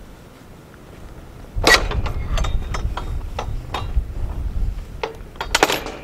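Metal latch and fittings of a wooden field gate clinking and knocking as the gate is opened and walked through: a series of sharp clicks with two louder clanks, about a second and a half in and near the end. Wind buffets the microphone from about a second and a half in.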